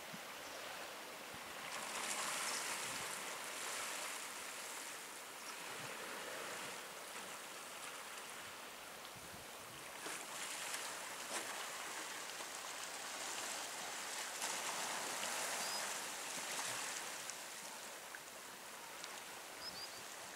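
Small waves washing against a rocky sea shore, a steady hiss that swells and fades every few seconds. Two faint short high chirps come near the end.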